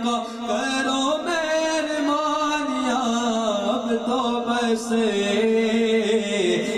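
A man singing an Urdu naat, a devotional poem in praise of the Prophet, into a microphone, holding long notes with wavering ornaments.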